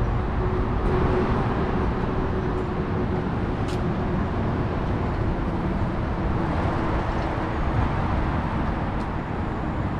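City street ambience: a steady rumble of traffic, with a faint steady hum through the first half and one light click about four seconds in.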